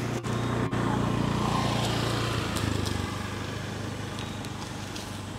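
A motor vehicle engine running steadily, loudest in the first two seconds or so and then fading away.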